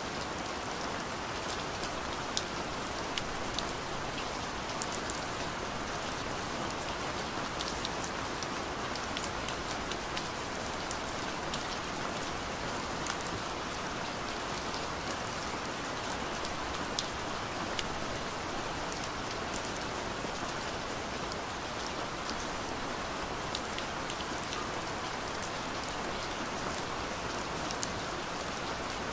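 Steady rain: an even hiss with many scattered sharp ticks of single drops on top.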